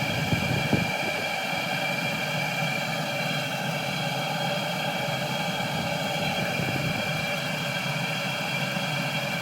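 Cheap Chinese 12V diesel air heater running steadily, burning, with the even whine of its fan motor over a low rush of combustion.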